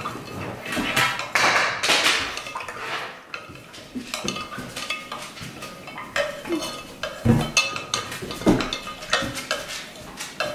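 Wooden skewers stirring a saturated borax solution in tall glass vases, with irregular clinks and scrapes against the glass and a few sharper knocks about seven and eight and a half seconds in.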